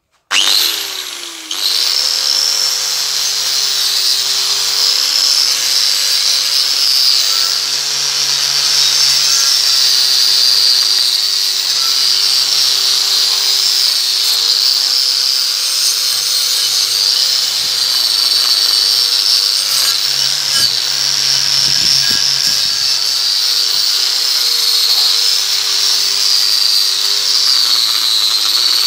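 Makita GA5030 angle grinder with a wire wheel brush, switched on just after the start and spinning up with a rising whine. It then runs steadily as the wire wheel scrubs dried grass and rust off a steel mower blade held in a vise.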